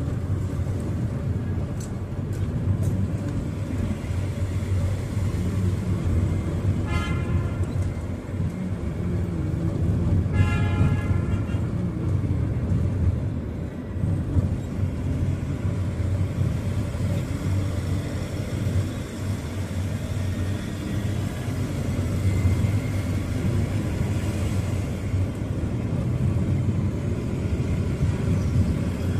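Steady low rumble of a car driving through city traffic. A car horn sounds twice: a short toot about seven seconds in and a slightly longer one around ten seconds in.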